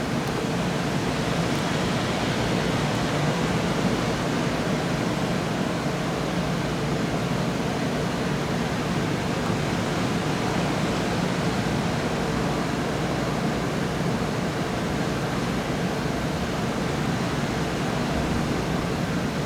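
Steady, even rushing noise with no thunderclap or other sudden sound.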